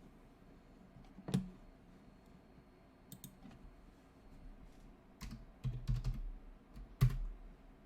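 Irregular taps and clicks of a computer keyboard: a sharp one about a second in, a few around three seconds, a quick cluster around six seconds and one more near the end.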